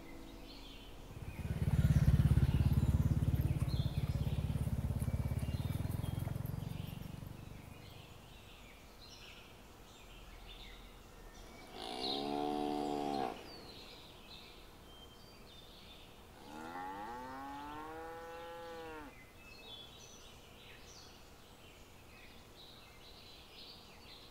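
A loud, low rumble starting about a second in and fading away over about six seconds, then cattle mooing twice: a short moo about halfway through and a longer one, rising then falling in pitch, a few seconds later. Birds chirp faintly throughout.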